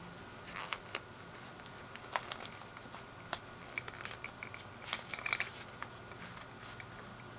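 Faint handling sounds of a soft ear pad being worked onto a plastic headphone ear cup: scattered small plastic clicks and brief scratchy rustles, busiest around the middle, over a low steady hum.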